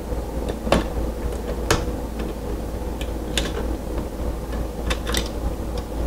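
Small sharp metallic clicks of needle-nose pliers and wire against a light switch's terminal screws as the wires are worked off, over a steady low hum.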